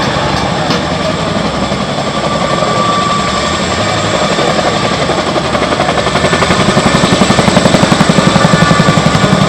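Boeing CH-47 Chinook tandem-rotor helicopter flying a display pass. The rotors give a loud, rapid, steady beat that grows louder in the second half.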